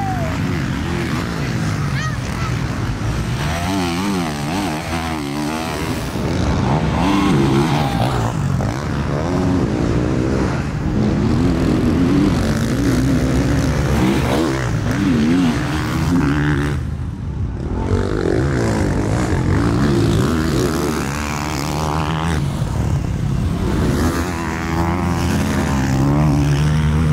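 Motocross bikes' engines revving hard, the pitch rising and falling with throttle and gear changes as riders race past on a dirt track, with a brief drop about two-thirds of the way through.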